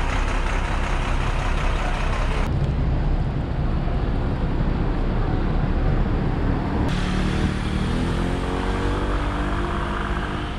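Street traffic noise, with an engine rising steadily in pitch as a vehicle accelerates from about seven seconds in.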